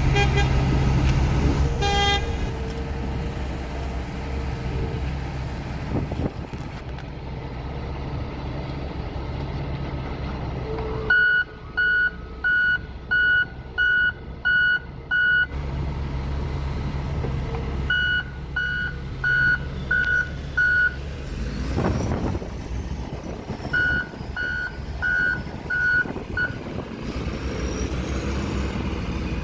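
Heavy construction machine's diesel engine running steadily, with a reversing alarm beeping about twice a second in three runs of six to eight beeps.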